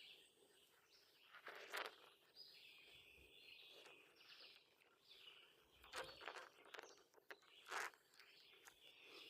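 Near silence: faint outdoor ambience with soft high-pitched chirping in the background and a few brief soft rustles or knocks.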